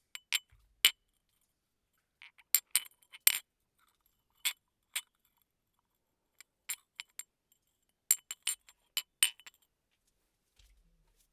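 A tea glass clinking in sharp, irregular strikes, some single and some in quick clusters of three or four. Each strike has a short, high ring.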